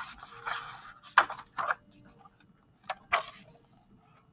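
A picture book's pages being turned and the book handled: a rustle of paper, then a few sharp paper flaps about a second in and again near three seconds.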